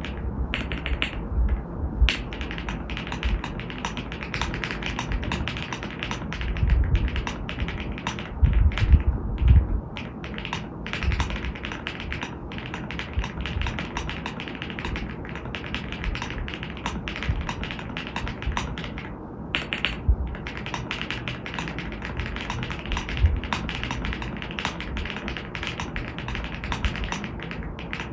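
Continuous fast typing on a Furycube F75 gasket-mount 75% mechanical keyboard fitted with retro Mac-style replacement keycaps, with a few deeper, heavier keystrokes between about six and ten seconds in.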